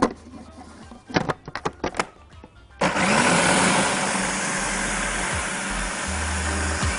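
A few clicks and knocks as the food processor is handled. About three seconds in, its motor starts and runs steadily, blending a wet mix of chopped peppers, herbs, garlic, lemon juice and vinegar.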